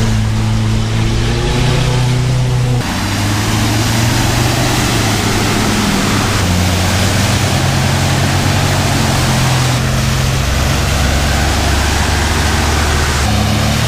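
A 4x4's engine running, heard from inside the cab on a muddy off-road track. About three seconds in, the sound switches abruptly to a noisier steady mechanical hum whose pitch steps every few seconds.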